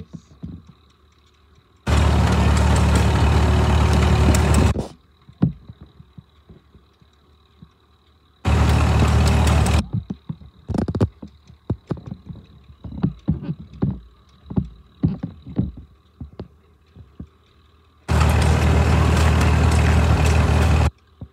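A George White & Sons steam traction engine running while standing still. There are three stretches of loud steady noise, each a few seconds long, that start and stop abruptly. Between them come quieter, irregular soft knocks and clicks.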